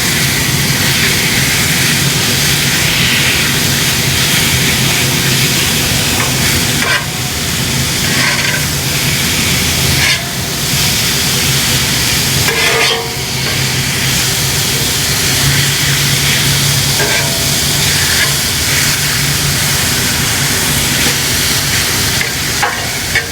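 Steak and onions sizzling steadily on a very hot flat-top griddle, with a few brief scrapes or taps as the food is stirred and turned.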